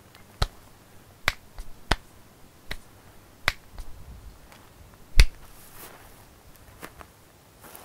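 Stone knocked against stone in sharp, irregular clacks, about seven of them with the loudest about five seconds in: the sound of knapping a stone tool.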